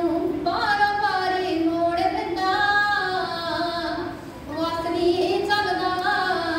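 A woman singing, holding long notes that slide up and down in pitch, with a short break about four seconds in.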